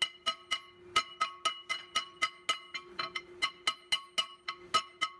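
A 3-pound hand hammer striking the glowing end of a 1.5-inch square steel bar on an anvil, about four blows a second with brief pauses near one and three seconds in, each blow leaving a bright metallic ring. The blows are flaring and widening the last half inch of the bar's end in an upset.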